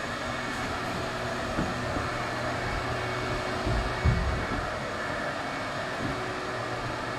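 A steady whooshing hum like a house's air conditioning, with a few dull thumps as movers carry a shrink-wrapped piece of furniture down a staircase. The heaviest thump comes about four seconds in.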